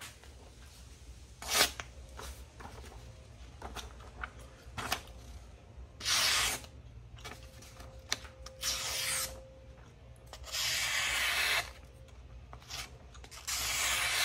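Freshly sharpened Shun kitchen knife slicing through a sheet of paper: four slicing swishes, each lasting under a second to about a second. The edge is sharp enough to cut paper cleanly. Light paper rustles come in between, and there is one sharp click about a second and a half in.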